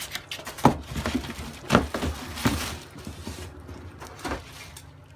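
Several hollow knocks and scraping of plastic and cardboard as an electric pressure washer unit is lifted out of its box and handled.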